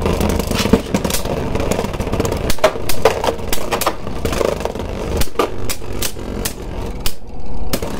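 Two Beyblade Burst spinning tops, one of them 3D-printed, whirring as they spin in a clear plastic stadium. They clack sharply against each other many times, and there is a duller thump near the end.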